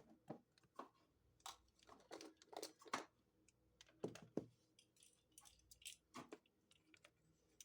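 A measuring spoon scooping dried parsley from a spice jar: faint, irregular small clicks, scrapes and light taps, in clusters about two, four and six seconds in.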